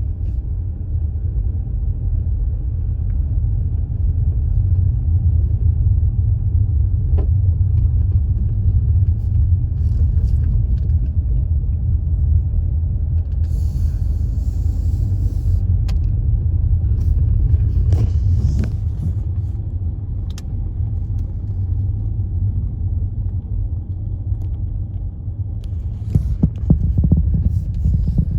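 Steady low rumble of a car driving, with a brief hiss about halfway through.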